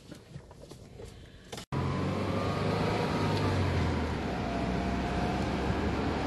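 Car driving, heard from inside the cabin: a steady run of engine hum and road noise that starts suddenly about two seconds in, after a quiet stretch with a few small clicks.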